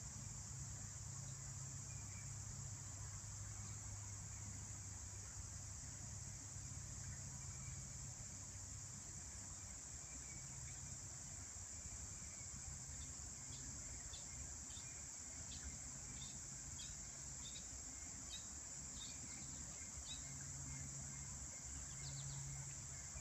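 Steady, high-pitched chorus of crickets trilling without pause. About halfway through, a separate run of short chirps repeats roughly one and a half times a second for several seconds.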